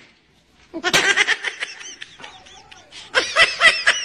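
A person laughing in quick repeated bursts, starting about a second in and growing louder near the end.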